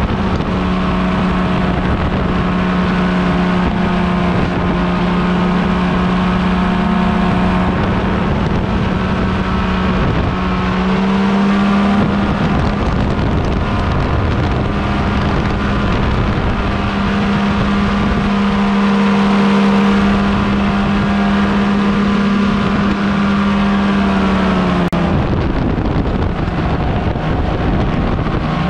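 Tandem paramotor trike's engine and propeller running hard through the takeoff run and climb-out, a steady loud drone with wind rushing on the microphone. The pitch rises slightly about twelve seconds in and drops noticeably a few seconds before the end as the power comes back.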